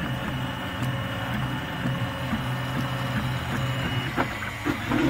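RepRap MendelMax 3D printer running a print, its stepper motors humming with a thin steady whine as they drive the print head. About four seconds in the whine stops, there is a knock, and the motor sound turns to a pitch that rises and falls.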